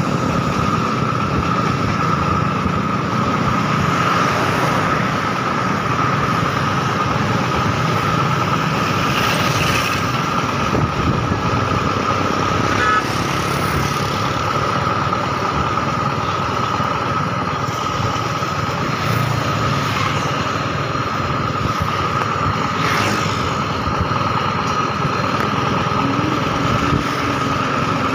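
Motor vehicle engines running steadily on the move, with road and wind noise and a constant high whine over them.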